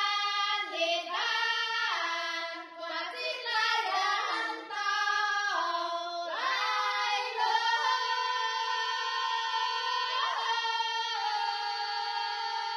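Children's voices singing a Zhuang folk mountain song (shan'ge) in high-pitched phrases, settling into one long held note about halfway through.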